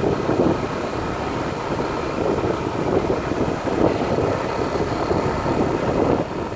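Wind rushing over the microphone of a moving bicycle rider on a road: a steady, gusting noise with no engine tone in it.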